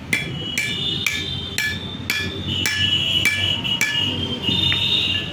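Small hammer tapping on a steel universal joint while its cross is being changed: about eight sharp, ringing metal blows, roughly two a second, stopping about four seconds in.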